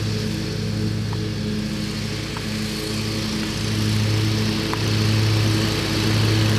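Exmark Turf Tracer commercial mower's 20 hp Kohler Command engine running steadily, its loudness swelling a little now and then.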